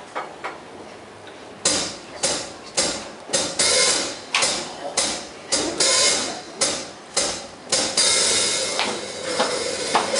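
Percussion: a series of loud, sharp strikes at roughly two a second, starting about two seconds in, with a longer ringing wash near the end.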